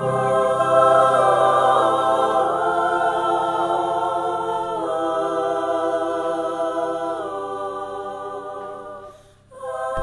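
Background song with long held sung notes that change every second or two, fading out about nine seconds in.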